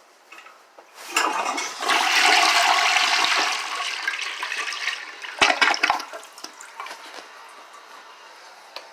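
Toilet flushing: about a second in comes a loud rush of water that tapers off over the next few seconds. A few sharp knocks follow, then a fainter steady run of water.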